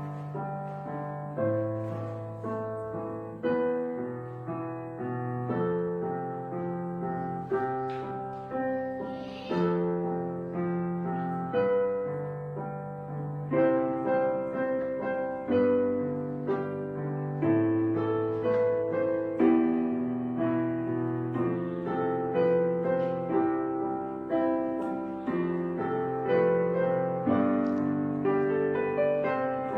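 Solo piano music: a steady stream of single notes and chords, each struck and then fading away.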